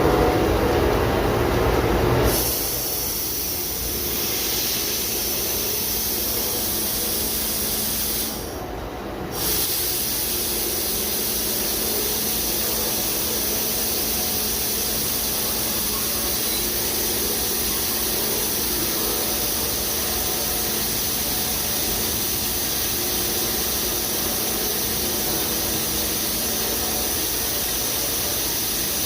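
Daito DNF-1050 CNC beam drill line running: a steady hiss with a faint steady hum underneath. The sound is heavier and louder for the first two seconds, and the hiss drops out for about a second around eight seconds in.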